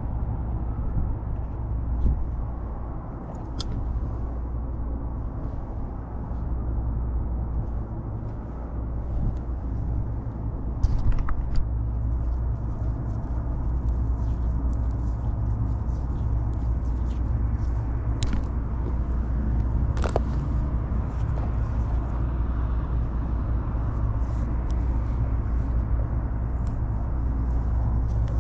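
Steady low rumble with scattered light clicks and taps of hand work on wiring.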